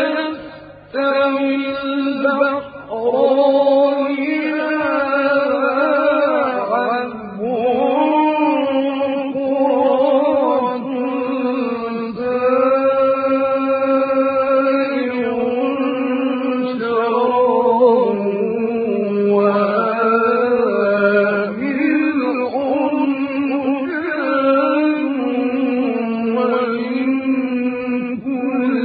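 Man's voice in melodic Quran recitation, held on long notes that waver and glide between pitches with ornamented runs, and taking only short breaks.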